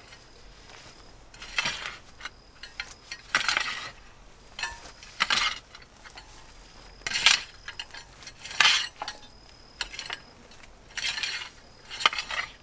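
Garden rake scraping and dragging coarse wood-chip mulch and food scraps across a compost pile, in about eight separate strokes coming every one to two seconds.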